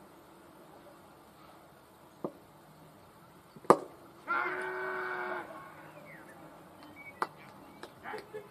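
A sharp knock of the cricket ball being played, followed about half a second later by a loud, held shout of about a second: a fielder's appeal for the wicket. A few sharp claps and short calls follow near the end.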